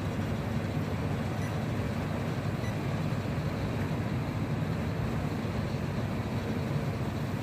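Syphon coffee maker's water at a rolling boil over its burner: a steady low rumble with a fainter hiss above it.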